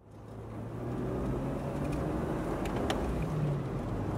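A vehicle driving on a gravel road: a steady low engine hum with tyre noise, fading in over the first second, with a couple of sharp clicks around the middle.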